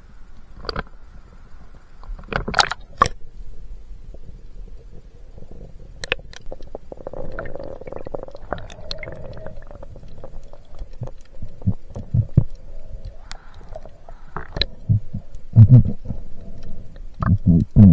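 Muffled underwater sound from a camera dipped below the sea surface: sharp splashes and clicks as it goes under, then a murky, gurgling rumble of moving water, with loud low thuds bunched near the end.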